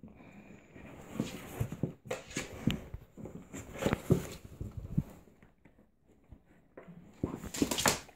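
Scuffling in a cardboard box as a Staffordshire bull terrier and a Bengal kitten play-fight inside it: irregular knocks, scratches and rustles against the cardboard, coming in bunches with short lulls between.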